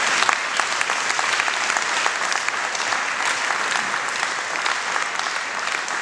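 Audience applauding: many hands clapping together, swelling in right at the start and then holding steady.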